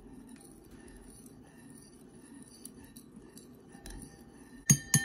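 Metal spoon stirring Jell-O mix in a ceramic bowl to dissolve the gelatin powder, with faint scraping and ticking against the bowl, then two sharp, ringing clinks of the spoon on the bowl near the end.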